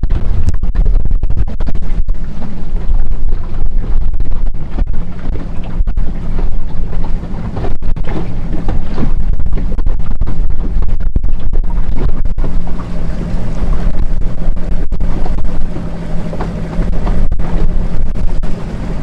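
Motorboat running at speed, its engine a steady low drone under heavy wind buffeting on the microphone, with the rush of water past the hull.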